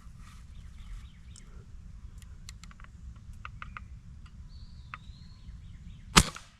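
A Crosman 760 multi-pump pellet rifle firing a single shot about six seconds in: one sharp, loud crack. Before it, a quiet background with a few faint ticks and chirps.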